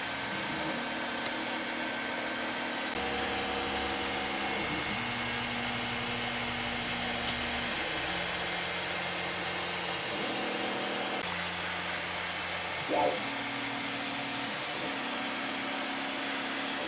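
Longer LK5 Pro 3D printer printing: its stepper motors hum in steady tones that jump in pitch every second or so as the print head changes direction, over the steady whir of its cooling fans. A short, higher chirp sounds near the end.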